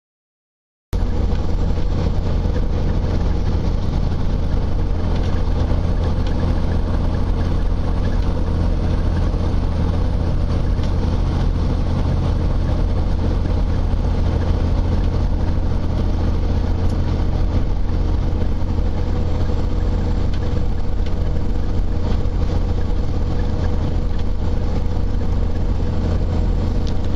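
A motor vehicle engine running steadily with a deep, even rumble, starting abruptly about a second in and cutting off suddenly at the end.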